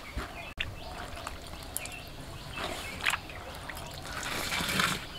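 Hands scooping soaked Indian jujube fruits out of water in a steel bowl, the water splashing and dripping off them. There is a sharp splash about three seconds in and a longer, louder sloshing near the end.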